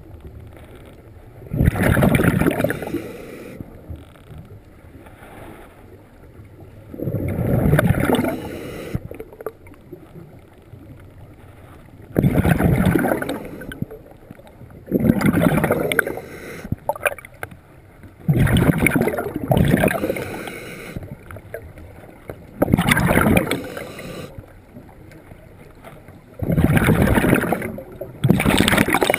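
Scuba regulator exhaust: the diver's exhaled breaths bursting out as bubbles, about eight times, roughly every three to four seconds, heard underwater with quieter stretches between breaths.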